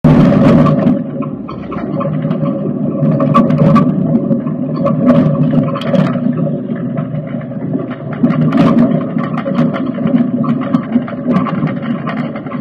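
A dirt-track race car's engine running loudly, heard from inside the cockpit, with repeated sharp bangs and rattles as the car shakes over a rough track.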